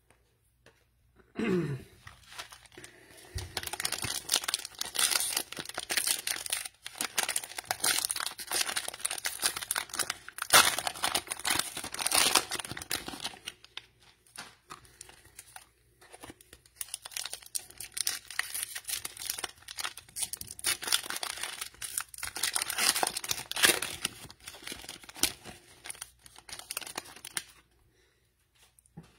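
Cellophane wrappers of NBA Optic cello packs being torn open and crumpled, a crackling rustle that comes and goes in spells and dies down for a moment about halfway through.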